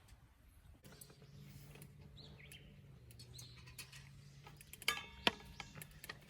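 Faint outdoor ambience: a low steady hum with a few faint bird chirps, and two sharp knocks about five seconds in.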